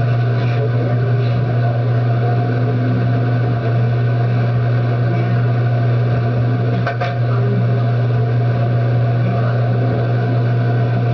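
A loud, steady low hum runs under faint, muffled talk, with a couple of light clicks about seven seconds in.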